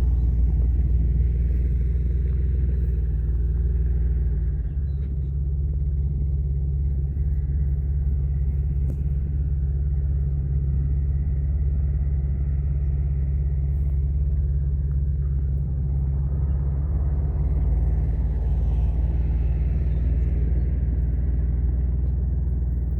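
Suzuki mini truck's engine running steadily while driving, a low drone with tyre and road noise; the engine note shifts about five seconds in and again near eighteen seconds.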